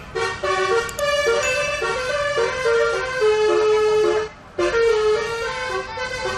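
Basuri 'telolet' multi-tone bus horn playing a quick melody of short stepped notes, with a brief break about four seconds in.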